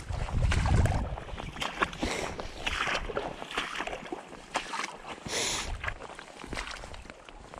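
Footsteps squelching and sloshing through waterlogged, boggy grass, with rustling of stems and a few low thuds, the heaviest about a second in.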